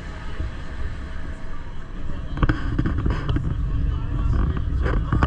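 Steady low rumble of the Gornergrat rack railway train running, with voices of people talking joining in about halfway through.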